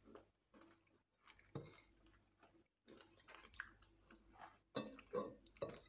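Faint chewing and mouth sounds of people eating spaghetti, in scattered short bursts that come a little more often in the second half.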